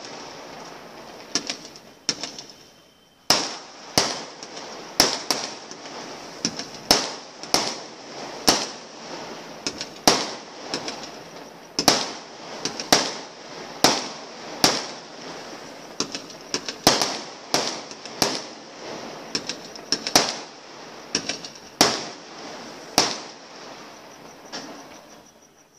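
Aerial firework shells bursting in a rapid run of sharp bangs, roughly one to two a second, each trailing off in an echo. A short lull comes about two seconds in, and the bangs stop just before the end.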